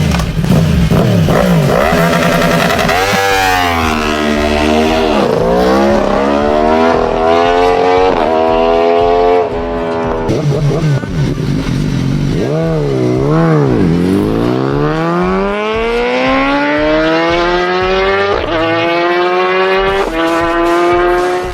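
Kawasaki Ninja ZX-10R's inline-four engine revving through its exhaust silencer: the pitch climbs and drops several times, then rises in one long, steady climb near the end.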